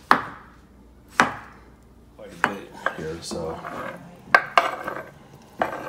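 Chef's knife chopping cooked beets on a wooden cutting board, a few sharp knocks of the blade on the board. In the second half, scraping and clatter as the beet pieces are pushed off the board into a frying pan.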